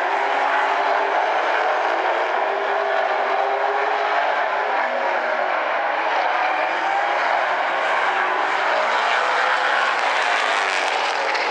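A field of street stock race cars at racing speed on an oval track, several engines running together, their pitches rising and falling over one another.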